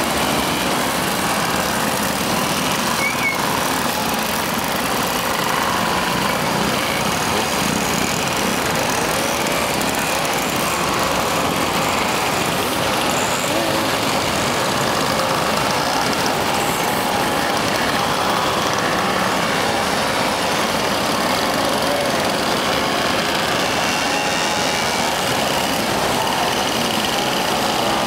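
Many vintage 50cc two-stroke moped engines running together as a long line of mopeds rides slowly past: a steady, dense mix of overlapping engine notes rising and falling as the machines go by.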